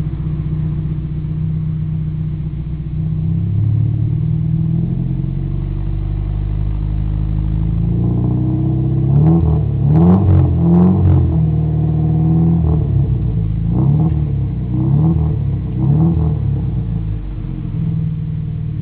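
Car engine idling, then revved in short blips: a quick cluster of revs about halfway through, then three more single revs, each rising and falling back to idle.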